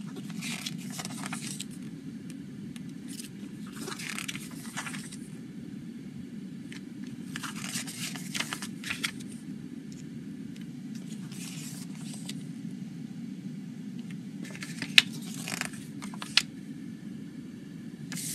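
Paper pages of a CD booklet being turned and slid under the hand, in rustling bursts every few seconds, over a steady low hum. Two sharp clicks come about three-quarters of the way through.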